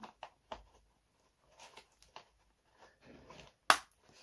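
Hard plastic parts of a Mini Brands toy convenience store being handled, with several small clicks, then one sharp, loud click near the end as a snap-fit piece locks into place.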